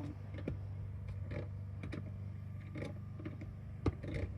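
Scattered light clicks and knocks of the reduced-pressure backflow assembly's fittings being handled and closed back up, over a steady low hum.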